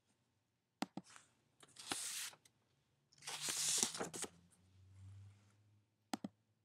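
A few short, sharp computer mouse clicks, a pair near the start and a quick double click near the end. Two longer, soft rustling hisses come in between.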